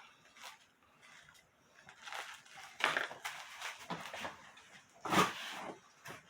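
Cardboard and packing filler being handled and pushed into a shipping box: irregular rustling and crinkling, loudest about three seconds in and again a little after five seconds.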